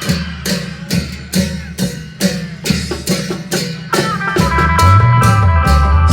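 Isan klong yao band music: steady drumbeats, joined about four seconds in by a loud bass line and a plucked electric string melody, making the music louder.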